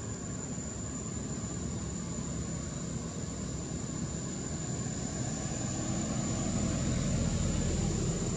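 Steady low rumble that swells a little over the last few seconds, over a constant thin high-pitched whine.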